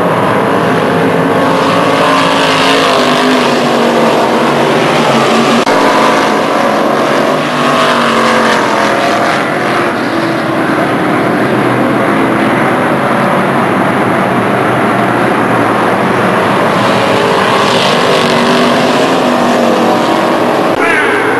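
Several dirt-track race car engines running hard around the oval. Their overlapping pitches rise and fall as the cars accelerate and lift through the turns.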